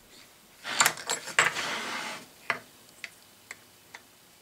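Small metal clicks and clinks of a tiny torque wrench and socket being worked on the cylinder-head nuts of a model steam engine. A brief scraping shuffle comes about a second in, as the engine on its wooden base is turned on the bench, followed by a few light single ticks.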